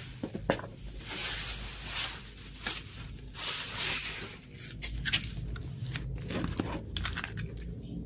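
Plastic bubble wrap crinkling and rustling as it is pulled and handled, in loud bursts through the first half. Then a run of sharp clicks and knocks.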